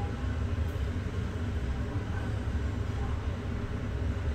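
Passenger lift in motion: a steady low rumble heard from inside the car.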